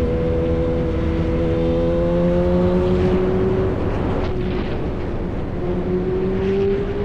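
Yamaha R1 sport bike's engine running through an SC-Project exhaust at an easy cruise. The engine note climbs slowly, dips about four seconds in, then climbs again.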